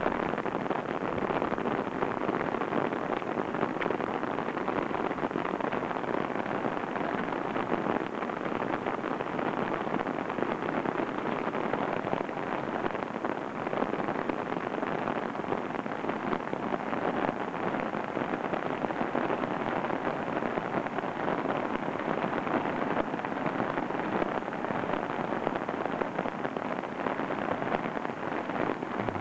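Shallow, muddy floodwater rushing steadily over a gravel driveway.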